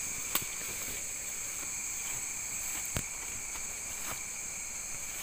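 Steady chorus of night insects: an unbroken high drone at two pitches, one very high and one lower. Two sharp clicks cut through it, one just after the start and one about three seconds in.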